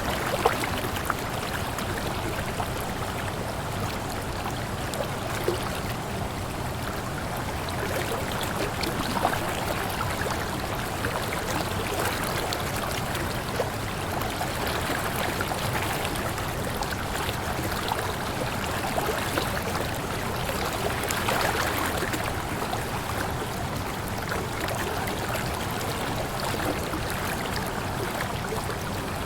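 Waterfall: a steady rush of falling and running water, with small splashes and gurgles over the top.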